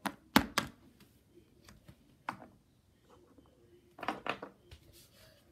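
Clicks and taps of small plastic toy figurines being handled and set down on a hardcover book. There are a few sharp taps near the start, a single one just after two seconds, and a quick cluster of knocks about four seconds in.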